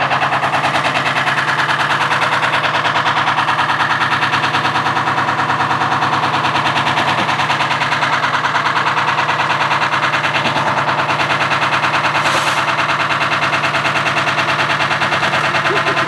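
Front-loading washing machine running flat out as it is driven to destruction, its drum hammering in a loud, fast, even rattle of rapid knocks over a steady low hum.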